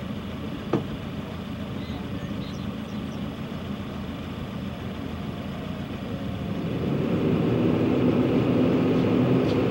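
Vehicle engine and road noise running steadily, then growing louder about seven seconds in as the vehicle speeds up, with a single knock about a second in.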